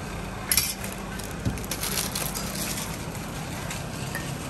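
Food-prep handling noises at a noodle stall counter: short crackly, crinkling bursts and a few light knocks, loudest about half a second in, over a steady low hum.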